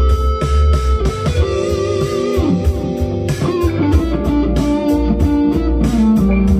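Harley Benton HB DC-580 SG-copy electric guitar playing a lead line with string bends over a funk backing track of bass and drums.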